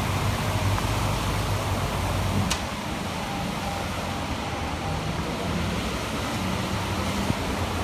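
A car running with a low engine hum under a steady rushing noise, and a single sharp click about two and a half seconds in.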